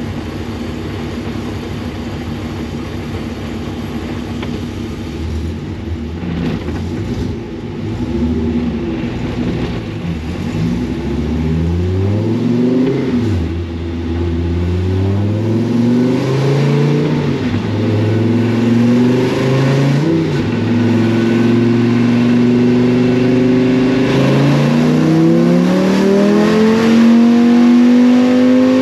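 Dodge Viper race car's V10 engine on a chassis dyno, heard from inside the cabin, running steadily and then revving up in several climbs under throttle. Each climb drops back before the next, and it gets louder toward the end: an attempt at a full-power dyno pull.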